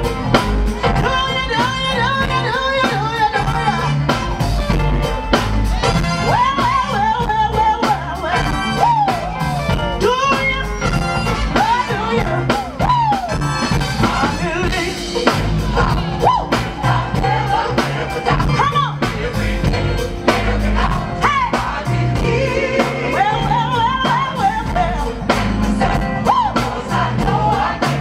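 Live gospel performance: a lead singer and a gospel choir singing over a band, with a steady drum beat and a heavy bass line, amplified through a stage PA.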